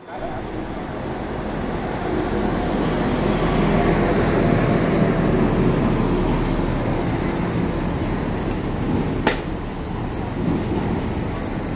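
Steady street traffic noise with a bus running close by, growing louder over the first few seconds. A single sharp click about nine seconds in.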